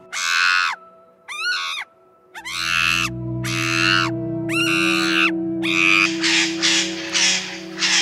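A series of short, harsh animal calls, each about half a second, coming faster and closer together in the second half. A steady low musical drone joins underneath about two and a half seconds in.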